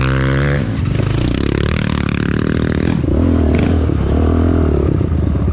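ATV engine running under throttle on a dirt trail, climbing in pitch as it accelerates at the start and then holding on with small rises and falls, along with the clatter of the quad over rough ground.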